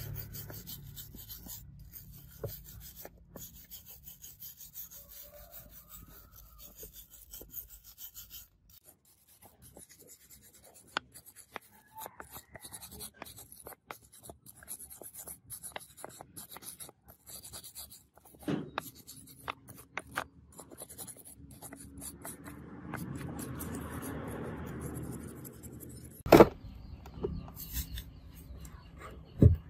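Hand wire brush scrubbing rust and grime off a corroded metal car part: a run of short, scratchy back-and-forth strokes. Two sharp knocks near the end.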